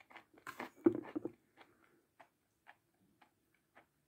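Close-miked chewing of red chalk with yellow clay: a burst of crunches and wet mouth clicks in the first second and a half, loudest about a second in, then single soft clicks about every half second.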